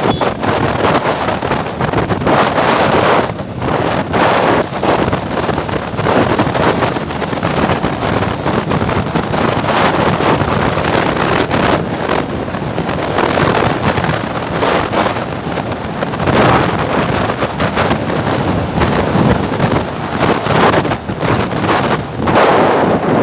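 Wind buffeting the microphone: a loud, continuous rushing noise that swells and dips irregularly.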